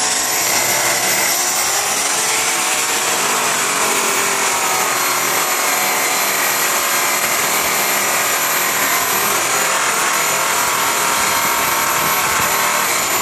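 Electric rotary polisher spinning a buffing pad against an aluminum truck rim. Its high motor whine climbs to full speed in the first second or so, then holds steady under load.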